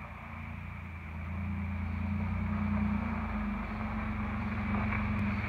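Toyota Tacoma pickup's engine running as the truck drives up at low speed, with a steady low tone that grows louder over the first few seconds as it approaches.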